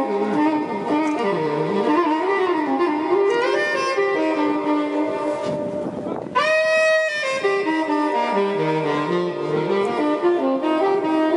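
Background music: a saxophone plays a flowing melody over a backing, with one loud held note about six seconds in.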